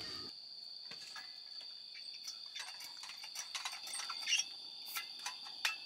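Crickets trilling steadily at a high pitch, with scattered sharp crackles and pops from a wood campfire that come more often near the end.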